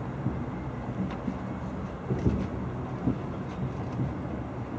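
Fireworks display: several dull booms from launching and bursting shells over a steady low rumble.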